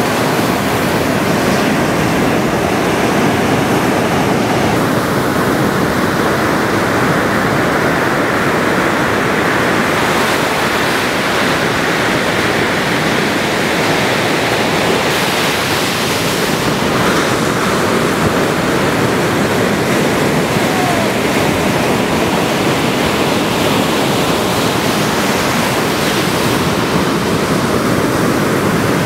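Ocean surf: a loud, steady wash of breaking waves that swells and eases slightly.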